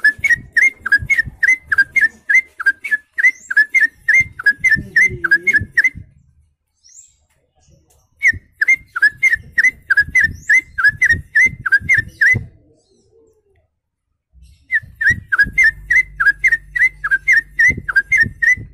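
A man whistling by mouth in imitation of a songbird's call: rapid, evenly repeated high whistled notes, about four a second, each a quick slurred note, with sharp clicking mouth sounds among them. The call comes in three bouts with short pauses between.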